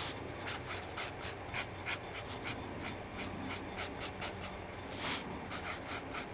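Pencil scratching on paper in quick, short sketching strokes, about three or four a second, with one longer stroke about five seconds in, as hair is drawn in with short flicks.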